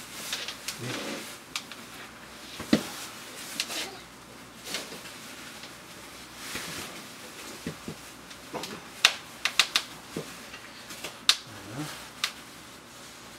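Scattered sharp clicks and knocks over soft rustling, the sounds of things being handled, with a quick run of louder clicks about two thirds of the way in.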